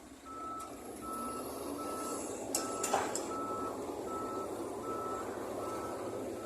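Vehicle reversing alarm beeping at an even pace, a single-pitched beep about every three-quarters of a second, over a steady engine rumble. A few sharp clanks come about two and a half to three seconds in and are the loudest sounds.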